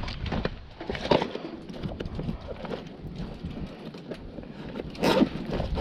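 Irregular knocks and clatter of metal parts being handled while a microwave oven is pulled apart, with sharper knocks about a second in and near the end.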